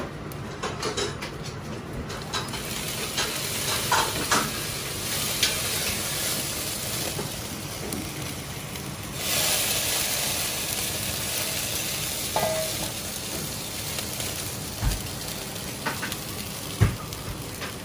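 Large stainless stockpot of chicken and pork-fat paitan stock at a hard rolling boil: steady bubbling and hiss with scattered small clicks, the hiss louder for a few seconds midway. Near the end there is a sharp knock, the metal lid going onto the pot.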